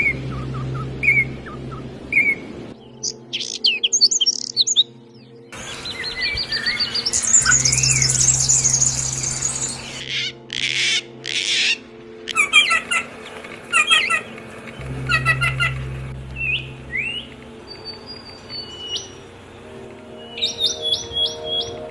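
Songbirds singing and calling over steady background music, with a different bird's song every few seconds: whistled phrases, fast trills and rapid repeated chirps.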